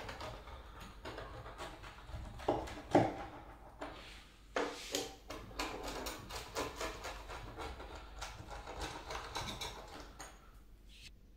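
A pizza cutter wheel rolling through a thin, crisp pizza crust on a wooden board: a run of crackling crunches and clicks, stopping near the end.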